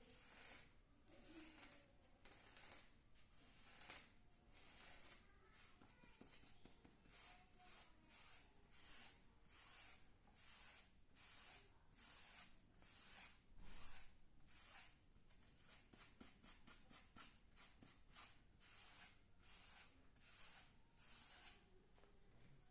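ASMR scratching strokes on a surface close to the microphone: a run of short, hissy scrapes, irregular at first and then settling into about two a second from roughly eight seconds in.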